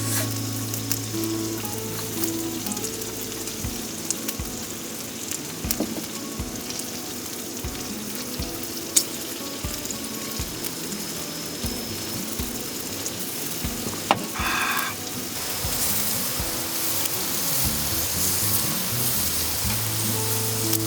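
Chicken frying in a pan, a steady sizzle with small pops and crackles. Soft background music plays under it, and a brief ringing sound comes about two-thirds through.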